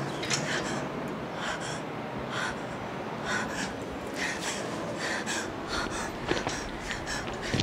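A person breathing hard in repeated rasping gasps, roughly two a second.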